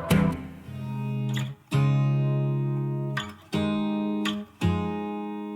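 Background music: guitar chords strummed every second or so, each left to ring and fade, with no singing.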